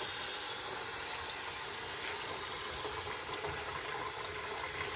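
Water running steadily through a water dispenser fed by filtered tap water, flushing it during cleaning.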